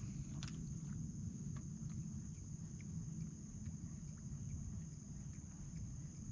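Faint outdoor ambience on calm water: a steady high-pitched insect drone, over a low rumble, with a faint click about half a second in.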